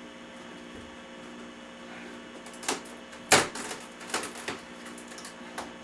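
A short run of irregular knocks and clicks, the loudest about three seconds in, over a steady faint hum.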